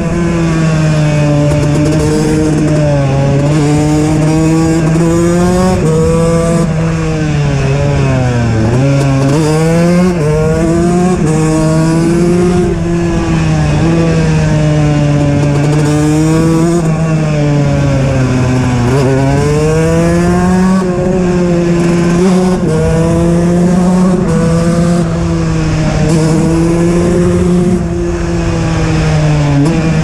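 KTM EXC 125's two-stroke single-cylinder engine with an HGS exhaust, running hard at high revs under load. The revs dip deeply twice and climb back as the throttle is eased and opened again.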